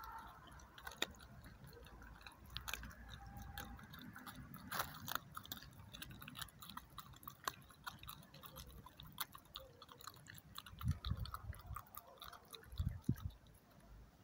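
A dog chewing and crunching food, with many short sharp crunches and two dull low thumps near the end.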